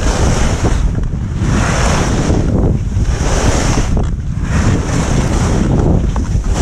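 Wind rushing over a helmet-mounted camera's microphone together with the sit-ski's runners hissing and scraping over snow. The noise swells and fades about every second and a half as the skier carves from turn to turn.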